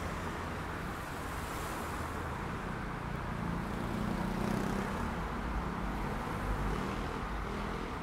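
City road traffic: a steady rumble of engines and tyre noise, with one vehicle passing a little louder about four to five seconds in.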